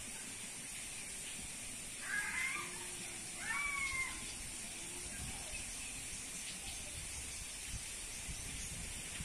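Two short animal calls about a second apart, each sliding in pitch, over a steady high background hiss.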